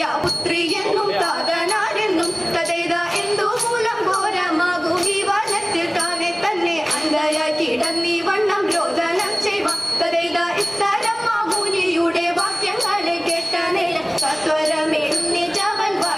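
Women singing a Malayalam dance song in Thiruvathirakali style, over a steady rhythm of short strokes.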